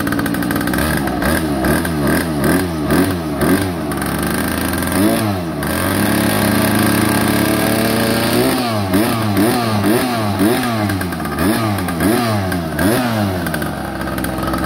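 Evo 2x 71cc goped engine running and being revved in quick repeated blips, about two a second. Midway it is held steady at higher revs for a couple of seconds, then blipped again.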